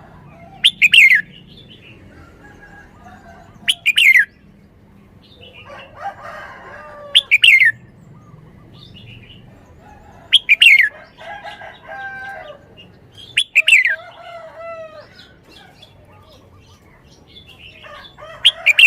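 Red-whiskered bulbul singing: six short, loud phrases of falling whistled notes a few seconds apart, with softer warbling between them.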